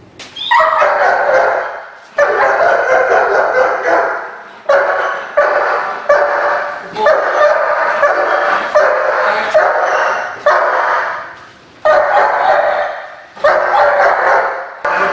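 German Shepherd protection dog barking hard in a string of volleys, each a second or two long with short breaks between, agitated by a decoy taunting it while it is made to hold its place.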